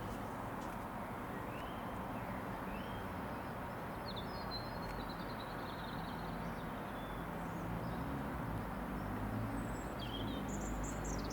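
Distant drone of a light aircraft's piston engine, growing slightly louder toward the end, over steady outdoor background noise, with birds chirping a few times.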